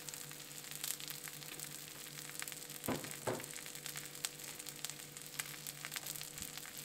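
Breadcrumbed redfin perch fillets shallow-frying in margarine in a pan on low heat: a quiet, steady sizzle of fine crackles. Two short, slightly louder sounds come about three seconds in.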